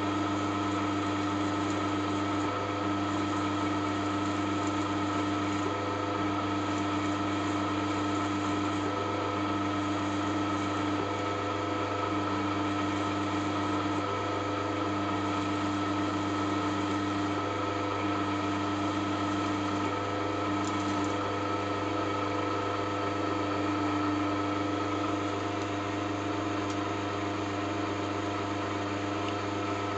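Drill running at about 500 rpm as its 1.5 mm bit bores through the head of a socket cap screw to make a safety-wire hole: a steady hum with several fixed tones.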